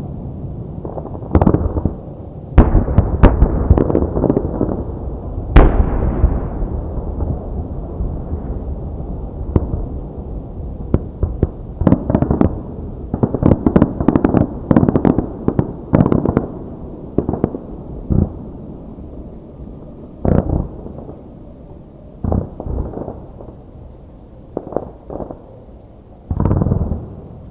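Fireworks display: aerial shells bursting in quick volleys, each bang followed by a rumbling echo, with dense clusters of bursts and sparser single bangs later on.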